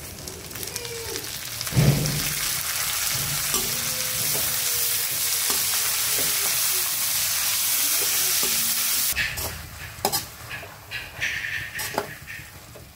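Fresh fenugreek leaves sizzling in hot oil in a wok. The sizzle flares up loudly about two seconds in and dies down after about nine seconds, when the clicks and scrapes of a metal spatula against the pan stand out.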